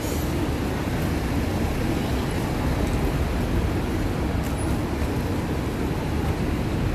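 Steady traffic noise of a busy city street: a continuous low rumble of passing cars and buses.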